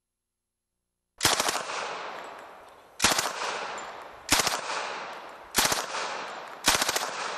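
After about a second of silence, a shoulder-fired automatic gun fires five short bursts of a few rounds each, about a second and a half apart, each burst echoing away before the next.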